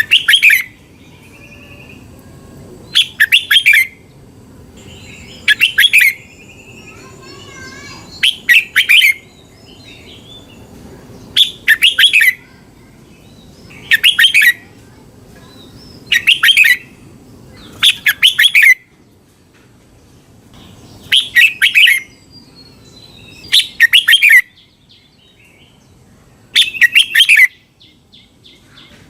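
Red-whiskered bulbul singing the same short, bright warbled phrase over and over, about once every two and a half seconds. Fainter chirps from other birds fill the gaps.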